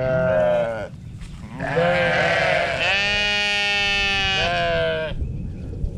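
Sheep bleating: a short bleat right at the start, then one long, drawn-out bleat from about a second and a half in until about five seconds in.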